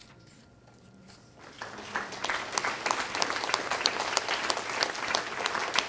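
Audience applauding at the end of a poem, starting about one and a half seconds in after a brief hush and building to a steady, dense clapping.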